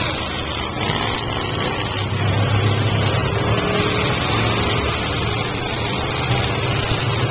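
Several demolition derby cars' engines running together in a loud, steady, low drone.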